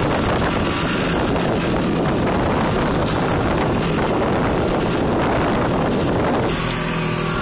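Strong wind buffeting the microphone over the steady running of a Shetland 498 motorboat under way in choppy water. Near the end the wind noise drops and the boat's engine comes through as a steady hum.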